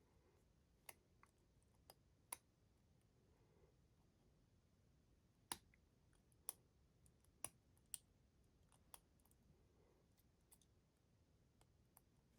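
Faint, irregular small metallic clicks of a Mindy AF16-50 padlock being picked: about a dozen separate ticks from the pick and tension tool working the lock's core, spaced unevenly with quiet between them.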